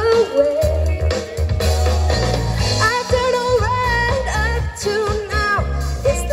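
Live band playing a pop song: a woman singing into a microphone over electric guitar and a drum kit, amplified through stage speakers.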